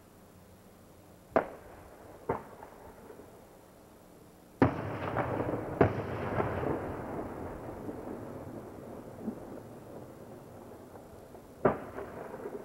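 Aerial fireworks shells bursting: five sharp bangs. Two smaller ones come early, the two loudest close together near the middle, and one more near the end. After the loudest pair, echoing noise lingers and dies away over several seconds.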